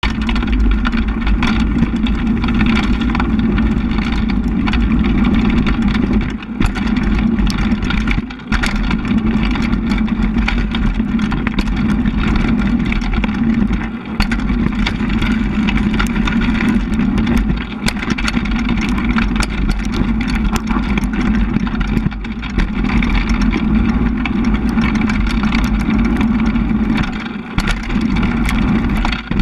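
Mountain bike front tyre rolling fast over a loose gravel trail, heard from a camera mounted low on the frame next to the tyre: a steady loud rumble with many sharp clicks and rattles of stones and bike parts. The noise drops briefly a few times.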